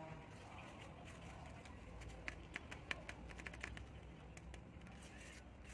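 Paper origami claws worn on the fingertips clicking and tapping lightly as the hands move: a quick run of about a dozen light clicks over a second and a half, over a faint steady hum.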